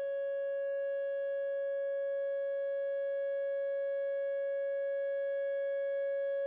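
Loud steady single-pitched tone from a signal generator played through a speaker, held at a wine glass's resonant frequency and turned up as loud as it goes to set the glass vibrating toward breaking. The pitch and volume hold without change, with faint higher overtones above the main note.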